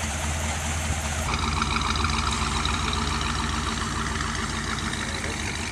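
A 1950s Ford Thunderbird's V8 engine running steadily as the car pulls away and drives off, growing slightly fainter toward the end.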